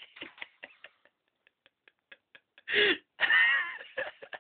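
A run of faint, quick ticks and rustles, then two loud wordless vocal outbursts: a short cry about two and a half seconds in and a longer one just after three seconds.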